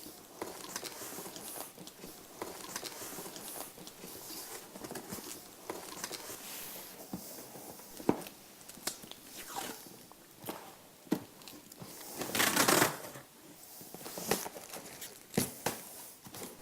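A cardboard carton being sealed with packing tape: rustling and knocks of cardboard and paper, and tape pulled off the roll, one long loud pull about twelve seconds in.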